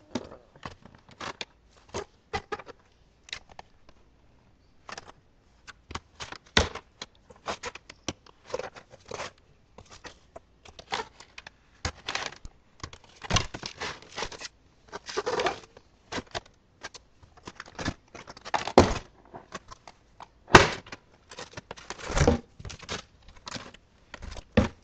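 Handling of box packaging: irregular crinkling, rustling and tearing of plastic and cardboard, with scattered clicks and knocks, as an RC crawler truck is worked free of its box. The louder knocks come in the second half.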